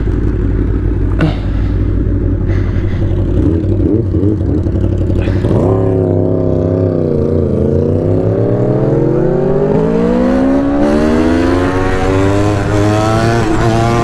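Motorcycle engine running low and steady, then revving up about five seconds in as the bike accelerates. The pitch dips briefly at a gear change and then climbs steadily.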